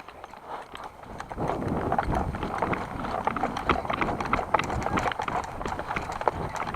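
Footsteps of a person running across the ground, with gear rattling along with the steps: a dense, uneven string of knocks and clicks that starts about a second in and keeps going.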